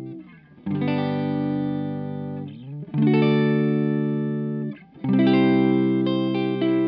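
Clean electric guitar chords played through the CE-1 preamp of a JFX Pedals Deluxe Modulation Ensemble, which adds subtle warmth with no chorus or flanger. Three chords are strummed about two seconds apart, each held ringing and then stopped short, with quicker chord changes near the end.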